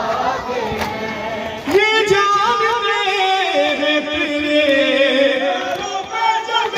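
Mixed crowd voices, then about two seconds in a man starts chanting a noha (Shia mourning lament) into a microphone, drawing out long sung notes.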